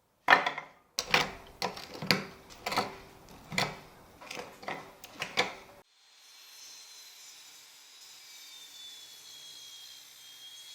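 A hand tool working wood in about ten rhythmic strokes, roughly two a second, which stop about six seconds in. After that a faint steady hiss with a thin wavering whistle.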